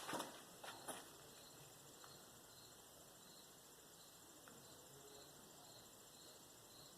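Near silence with faint insect chirping, a high chirp repeating about twice a second. A few soft knocks in the first second.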